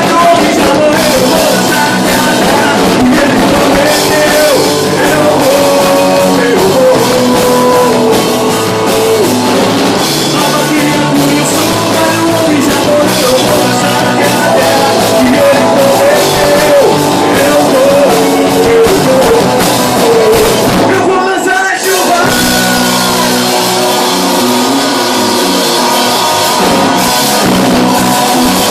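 Live band playing a rock-style worship song, with drum kit, guitar and a sung melody. It breaks off briefly about 21 seconds in, then carries on.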